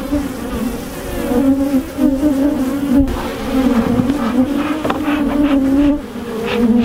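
Honey bees buzzing loudly close to the microphone, the pitch wavering as they circle and fly past.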